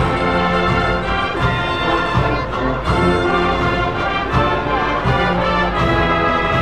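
Brass band playing a processional march, sustained brass chords over a steady drum beat.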